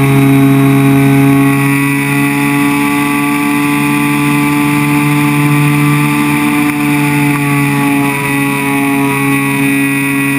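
Electric motor and propeller of a ParkZone Extra 300 RC plane droning steadily in flight, muffled through the GoPro's waterproof housing on the plane. The pitch shifts slightly with throttle about three-quarters of the way through.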